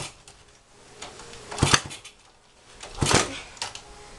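A 1975 Honda CB125S single-cylinder engine being kicked over. It fires in short, loud bursts but won't keep running: two bursts about a second and a half apart, the second followed by a smaller one.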